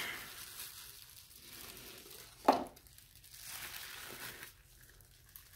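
Soft crinkling of plastic as gloved hands handle paint-pouring materials, with one short sharp sound about two and a half seconds in.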